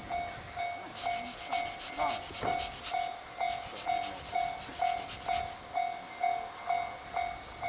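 Japanese level-crossing warning bell ringing steadily about twice a second. A rapid, rhythmic high hissing comes and goes over it in the middle seconds.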